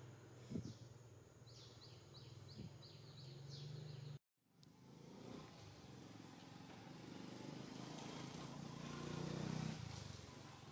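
Faint outdoor ambience: a steady insect drone with a bird giving a run of quick falling chirps, about three a second, and a soft thump about half a second in. After a brief dropout, an even rushing background noise swells and eases near the end.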